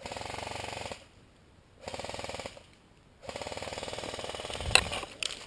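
Airsoft rifle firing three full-auto bursts, each a fast, even rattle of shots: about one second long, then a shorter one, then a longer one of about a second and a half. A single sharp crack near the end of the last burst is the loudest sound.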